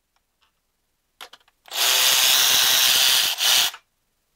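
Handheld cordless power tool running in one burst of about a second and a half, pausing for a moment, then a short second burst, driving a fastener on the engine's timing end. A few light clicks come just before it starts.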